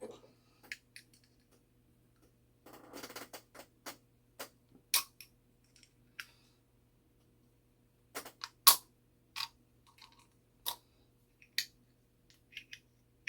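Irregular sharp metallic clicks and taps from small parts of a Shanghai 555 clock movement being worked by hand, with a brief scrape about three seconds in.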